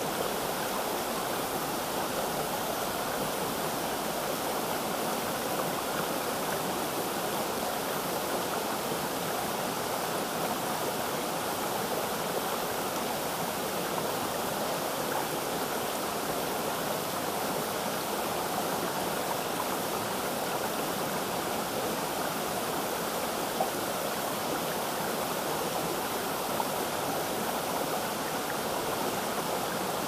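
Steady rush of a waterfall and stream, an even unbroken noise with no changes.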